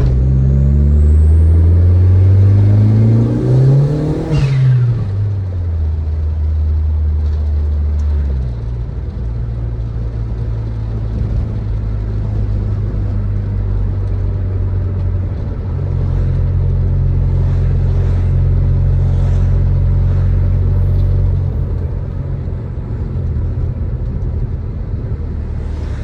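Turbocharged Audi 1.8T 20V inline-four with a K04 turbo and 3-inch stainless exhaust, revving up under acceleration for about four seconds. A falling hiss follows as the throttle closes, the turbo releasing. It then settles into a steady low cruising drone, rising a little for a few seconds in the second half.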